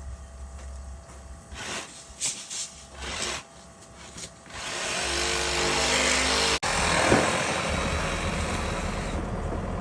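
Excavator at work: a few short scraping knocks, then about halfway in the machine's engine runs loud and steady, with a brief whine that cuts off suddenly.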